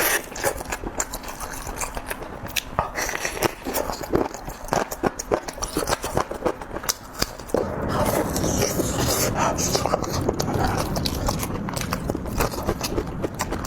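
Close-miked eating: a person biting and chewing food, with many small crisp clicks and smacks. About halfway through, a denser, steadier chewing noise sets in beneath the clicks.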